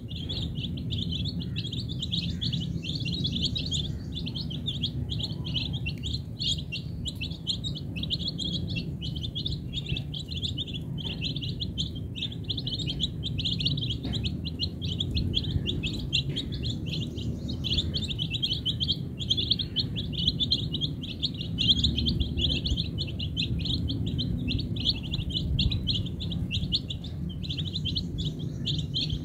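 A flock of chicken chicks peeping without pause: many high, short peeps overlapping in quick succession, over a steady low rumble.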